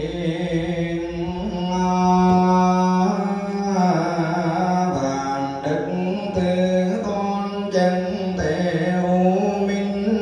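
Vietnamese Buddhist liturgical chanting, sung in long held notes that step up and down in pitch.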